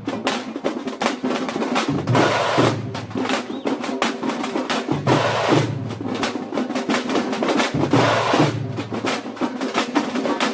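A troupe of tamate frame drums and barrel drums beaten with sticks together, a dense, fast, continuous rhythm of strokes.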